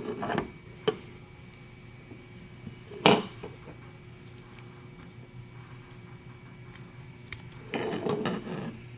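Hard casing parts and small components of a security camera being handled during a teardown, with scattered clicks and clacks. A loud sharp click comes about three seconds in, and a short rattling clatter comes near the end.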